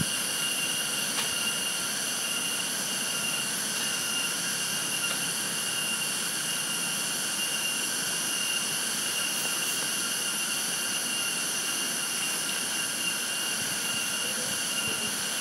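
Insect chorus, most likely cicadas, droning steadily: a high-pitched buzz held at several even pitches without a break.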